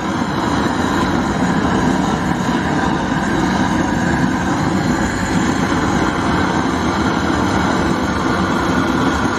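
LPG burner torch, fed from a 3 kg gas cylinder, burning with a loud, steady rushing noise as its flame is played over a steel bicycle frame to burn the paint off.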